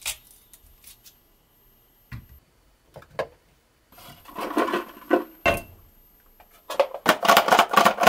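A kitchen knife knocking through corn cobs onto a plastic cutting board a few times, then cut corn pieces clattering in a clear plastic storage box. Near the end comes a fast run of clicks from the box's lid as it is fitted on.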